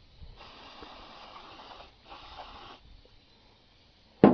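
Aerosol brake cleaner spraying in two bursts, the first about a second and a half long and the second under a second, degreasing a differential cover. Near the end a sudden loud knock.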